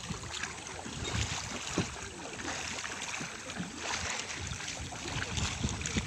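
Water lapping and splashing against a small boat's hull as it moves through calm backwater, with wind buffeting the microphone in irregular low gusts.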